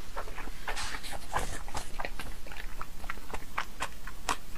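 Close-miked chewing of raw salmon with the mouth closed: a run of soft, wet, irregular mouth clicks and smacks.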